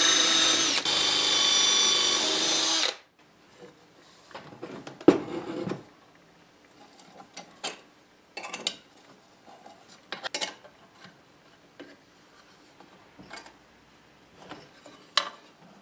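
Cordless drill boring a bolt hole into a wooden block, running steadily for about three seconds and then stopping. After it, scattered light clicks and knocks from hands working on the metal base of the tool.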